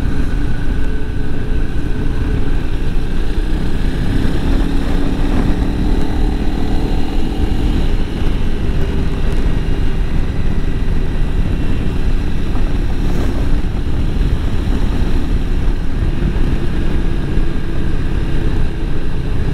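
Honda CRF300L Rally's single-cylinder engine running as the bike rides along, under a heavy low rumble. The engine note climbs between about four and eight seconds in, then holds steady.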